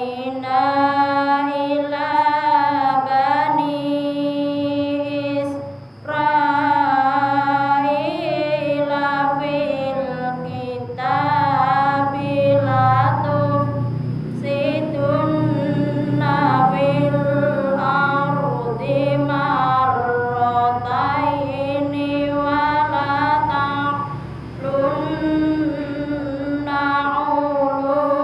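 A woman reciting the Quran in the melodic tilawah style into a handheld microphone: long held, ornamented notes that bend in pitch. There are short breaks for breath about six seconds in and again about twenty-four seconds in.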